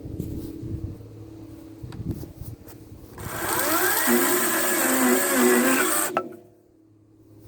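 Harbor Freight Lynx 14-inch 40-volt cordless chainsaw running for about three seconds as it cuts an oak branch, its motor whine rising and wavering under load, then stopping abruptly.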